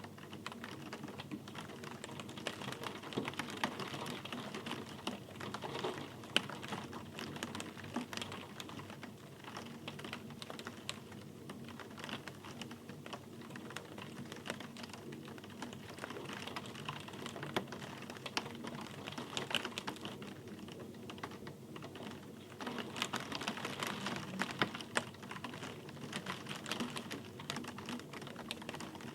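Steady rain with a dense, irregular patter of individual drops ticking onto a hard surface, swelling a little louder twice.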